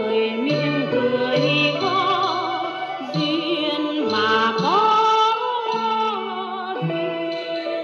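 A woman singing a northern Vietnamese folk song with instrumental accompaniment, heard from a radio broadcast through the speaker of a National Panasonic RF-1188 shortwave radio.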